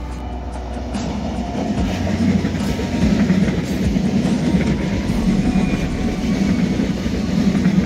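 A train running on the rails, its low rumble growing louder over the first few seconds, with a faint high whine about halfway through. Music fades out about a second in.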